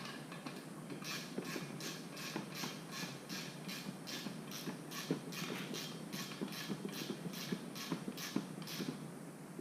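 Ratchet wrench clicking steadily, about three clicks a second, while tightening the rim lock nut on a dirt bike's front wheel.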